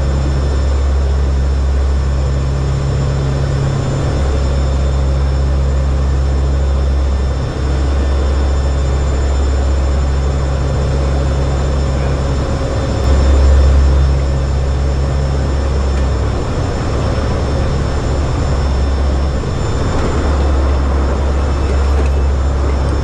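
Aircraft engines droning steadily in flight: a loud low hum that dips and returns every few seconds, with steady high whining tones above it. It swells louder about two-thirds of the way through.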